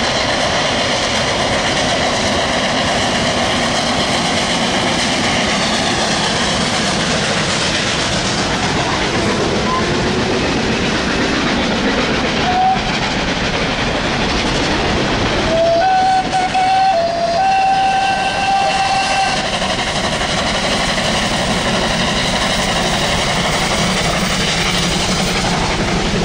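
Train running, with a steady dense noise throughout. A short whistle sounds about twelve seconds in, and a longer one, held for about three and a half seconds, follows a few seconds later.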